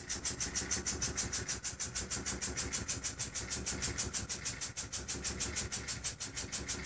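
Small compressed-air engine running steadily, its exhaust letting out a fast, even train of hissing puffs, about eight a second.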